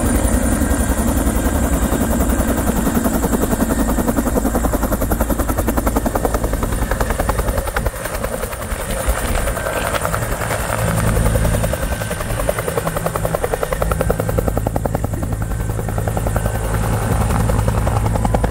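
Vintage Bell UH-1 "Huey" helicopter flying low and slow close by, its two-bladed main rotor beating rapidly and evenly, with a thin steady high whine above the beat.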